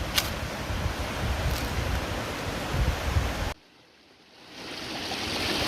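Steady rushing of a waterfall, with a low buffeting rumble of wind on the microphone. It cuts out suddenly about three and a half seconds in, and a lighter rush of running water fades back in near the end.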